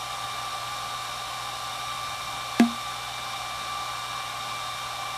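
Hair dryer running steadily with a faint whine. About two and a half seconds in, a single hollow pop as the open end of a cardboard paper tube is slapped shut with the palm, ringing briefly at the tube's low note.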